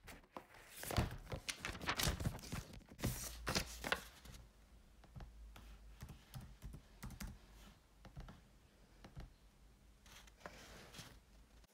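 Typing on a laptop keyboard, entering a password: a run of quick key clicks, louder and denser for the first few seconds, then softer and sparser.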